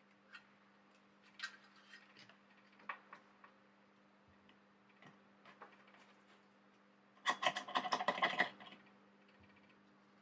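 Desoldering wick and soldering iron working the pads of a circuit board: faint scattered taps and scrapes, then a burst of rapid scratching about seven seconds in. A steady low hum runs underneath.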